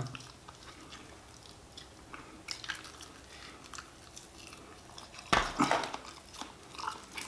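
Chewing and biting into a crispy fried chicken wing close to the microphone: quiet chewing with scattered short crunches, and a louder burst of crunching about five seconds in.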